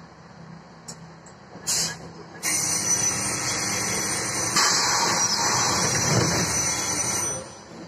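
Ikarus 280 bus standing with its Rába D10 diesel idling low. A short hiss of compressed air comes about a second and a half in, then a loud, even rush of air from the bus's pneumatic system lasts about five seconds, brightening midway, before it dies away.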